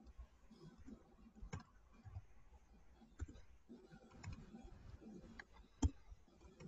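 Faint scattered clicks and light knocks over low room noise, with one sharper click about six seconds in.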